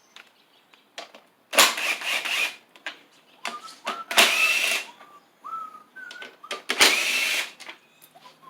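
Power drill-driver run in three short bursts of about a second each, its motor whine rising as it spins out screws holding a cover on the mower.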